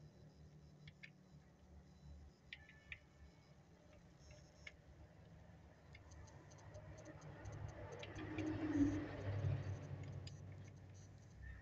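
Socket ratchet wrench clicking as a bolt on a motorcycle engine's side cover is turned, the clicks coming faster and louder in the second half.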